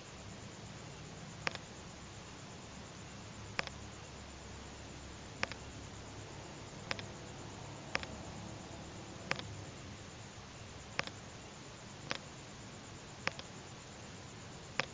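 A series of short sharp clicks, about one every one to two seconds, each followed at once by a softer second click, over a low steady hum.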